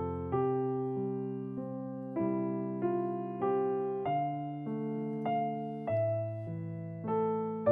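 Slow background piano music: chords and single notes struck about once a second and left to ring and fade.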